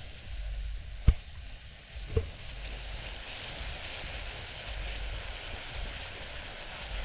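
Food frying in hot oil: a steady sizzle that grows louder about two and a half seconds in. Two sharp knocks about a second apart come near the start, the first the louder.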